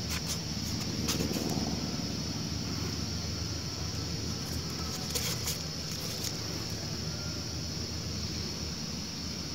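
Light clicks and taps of a bullet-holed tin can being handled close to the microphone, a few near the start and a pair about five seconds in, over a steady low rumble and a constant high hiss.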